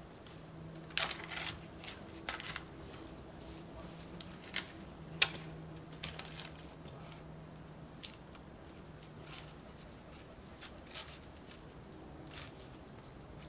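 Dry wood and pine-needle litter cracking, snapping and crunching as a long dead branch is lifted and dragged over the forest floor, with the sharpest cracks about a second in and about five seconds in. A faint steady low hum sits underneath.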